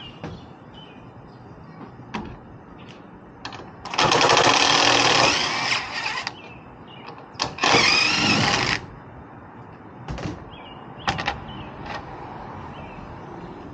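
Cordless power driver running in two bursts while fastening the ladder rack, a longer one of about two seconds and then a shorter one of about a second, with a rapid hammering texture. Short knocks and clicks of handled hardware come before and after.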